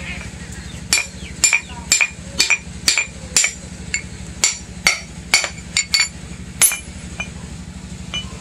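Hammer striking steel on an anvil: about a dozen sharp, ringing metallic blows, roughly two a second, that thin out about two-thirds of the way through, over a steady low hum.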